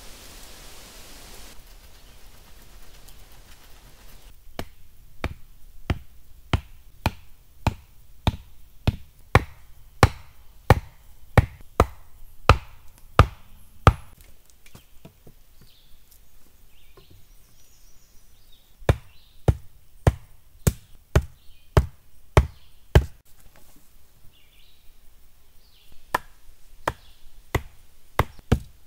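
Wooden posts being pounded into the ground: sharp wooden knocks at about two a second, in three runs with short pauses between.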